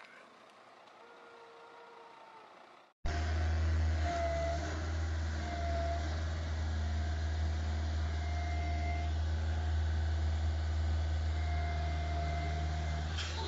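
Heavy machinery engine running steadily with a deep hum and an intermittent whine over it, the engine of a truck-mounted boom lift. For the first three seconds a quieter vehicle engine is heard, which cuts off abruptly before the louder running starts.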